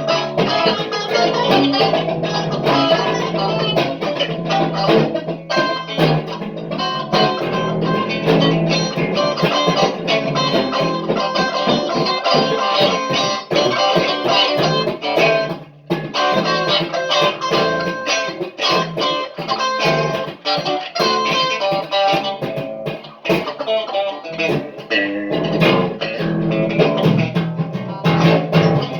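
Guitar playing: a steady stream of quick plucked notes, broken by a short gap about sixteen seconds in.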